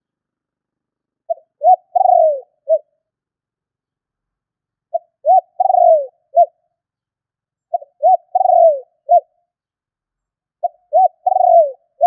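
Spotted dove cooing, four phrases about three seconds apart. Each is a couple of short coos, then a longer coo that falls in pitch, then a short closing coo.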